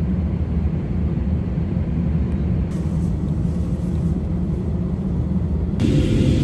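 Steady low rumble of a moving vehicle, with a broader rushing hiss joining in and getting louder near the end.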